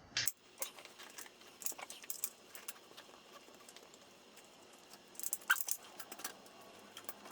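Scattered light clicks and small metallic rattles of hand work on a motorcycle wheel: a thick inner tube's valve stem being worked through the rim with a screw-on valve-stem fishing tool. The clicks come in clusters, a few near the start, more around two seconds in and again past five seconds.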